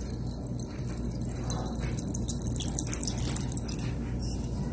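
Soy sauce pouring from a bottle into a glass bowl, a quiet liquid pour over a steady low hum.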